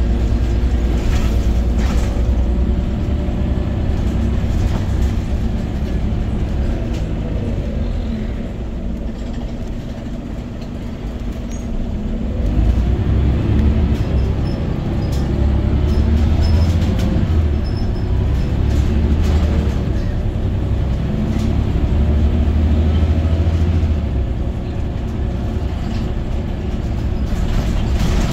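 Scania OmniCity city bus under way, heard from inside the passenger cabin: a steady low engine and drivetrain drone with road rumble. It grows quieter around ten seconds in and louder again from about twelve seconds.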